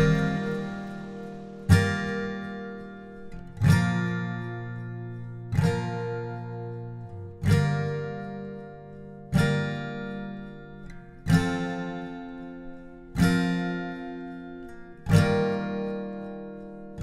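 Background music: acoustic guitar chords strummed once about every two seconds, each chord left to ring and fade before the next.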